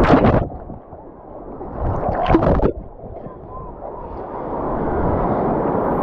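Seawater splashing and sloshing against a handheld camera at the water's surface as the camera dips in and out of the water: two sharp splashes, one at the start and one about two seconds in, with a muffled stretch between them. In the second half, breaking surf rushes in and builds louder.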